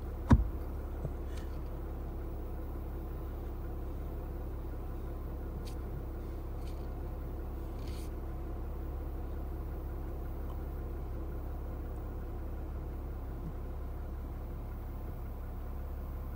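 Vehicle engine idling, a steady low rumble heard from inside the cab, with one sharp thump just after the start.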